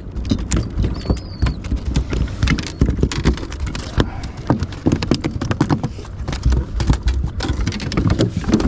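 A freshly landed, lively tailor flapping and thrashing, a fast, irregular run of slaps and thumps against the boat.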